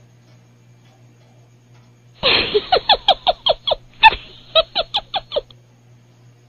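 A sudden run of about a dozen short animal-like cries, each falling in pitch, about four a second for roughly three seconds, then stopping abruptly.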